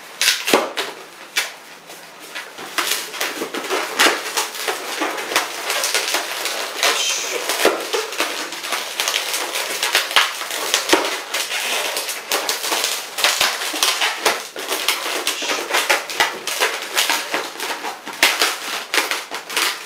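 Red 260 latex modelling balloon being twisted and squeezed by hand into a bear-ear twist: a dense, irregular run of rubbing and crackling latex sounds.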